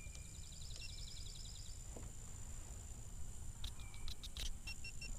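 Faint rural outdoor ambience: a steady high insect drone with a rapid chirping trill in the first two seconds, short repeated chirps near the end, all over a low rumble of wind.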